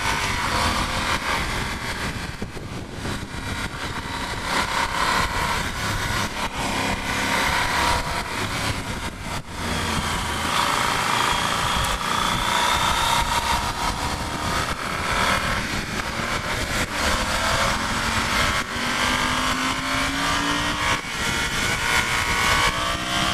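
Yamaha Super Ténéré 1200's parallel-twin engine running under way, heard on board over a steady rush of air. The revs climb near the end.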